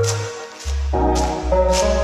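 Background music: sustained pitched notes over a steady bass line with regular beats, dropping away briefly about half a second in before coming back.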